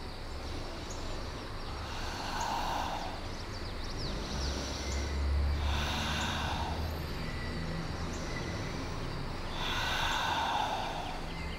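A woman breathing deeply and audibly: three slow, soft breaths about four seconds apart.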